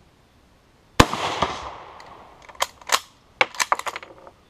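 A single shot from a French Lebel Model 1886/93 bolt-action rifle in 8mm Lebel about a second in, loud and sharp with an echo fading over about a second. Then the bolt is worked: a string of sharp metallic clicks and clacks over the last two seconds.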